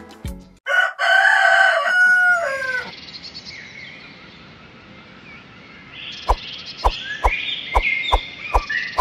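A rooster crowing once, a long loud call that drops in pitch at the end. Small birds chirp afterwards, and from about two-thirds of the way in a run of sharp clicks comes roughly twice a second.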